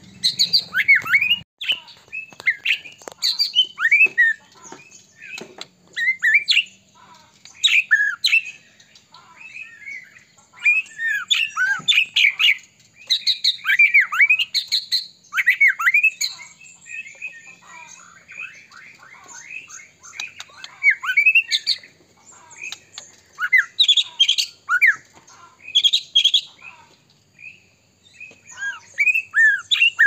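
White-rumped shama (murai batu) singing vigorously: quick, varied phrases of loud whistles that sweep up and down in pitch, mixed with short sharp notes, with brief pauses between phrases.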